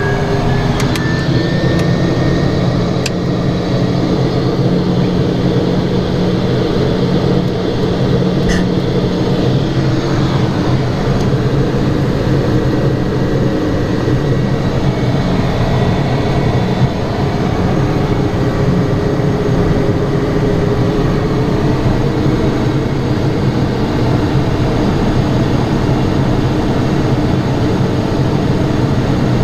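Cabin noise of a Piper M500's Pratt & Whitney PT6A-42A turboprop in flight: a loud, steady engine and propeller drone with a high turbine whine that rises briefly at the start and then holds steady.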